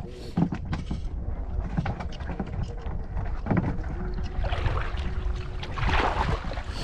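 Water moving around the camera while spearfishing: a steady low rumble with scattered clicks, and louder splashing and bubbling between about four and a half and six and a half seconds in.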